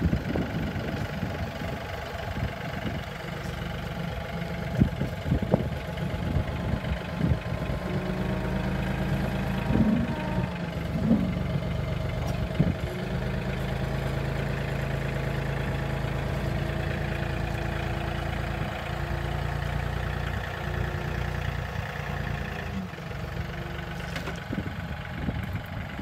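John Deere 3033R compact tractor's three-cylinder diesel engine running, with several sharp metal clunks in the first half and a steadier, stronger engine note through the middle.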